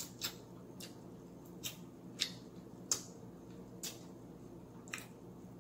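Wet mouth smacks and clicks of eating fried chicken with the fingers, chewing and licking the fingers, about six short, sharp ones spaced irregularly.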